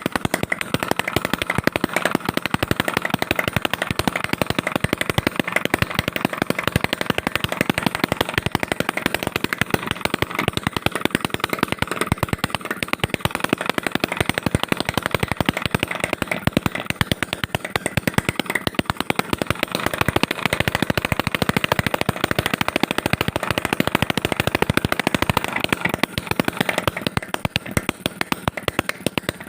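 Homemade two-stroke engine built from a refrigerator compressor, running steadily and firing in a rapid, unbroken stream of sharp pops, its beat swelling and easing a little now and then.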